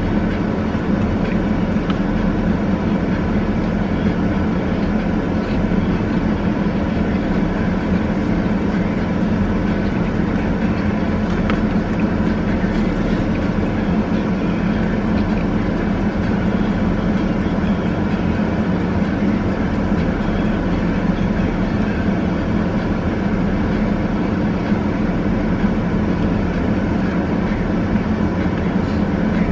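Steady, unbroken mechanical drone with a strong low hum.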